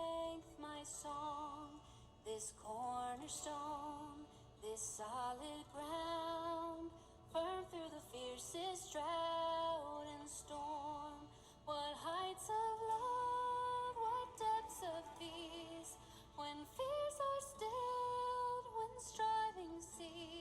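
Background music: a woman singing a slow song, with long held notes that waver in vibrato.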